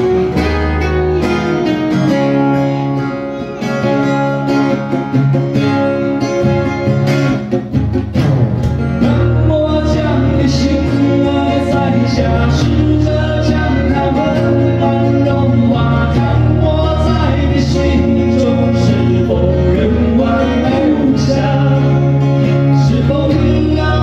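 Three acoustic guitars playing together live through an instrumental passage of a song, strummed chords under a picked melody line.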